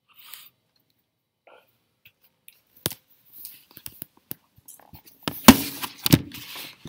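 Handling noise from a laptop being picked up and moved: a few scattered clicks, then louder knocks and rustling in the last second and a half, the loudest knock about five and a half seconds in.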